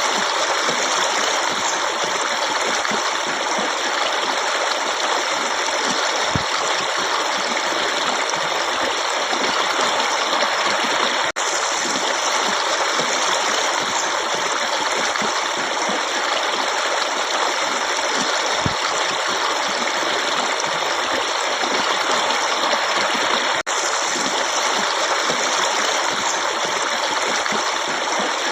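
Running water of a forest stream: a steady, unbroken rush that cuts out for an instant twice.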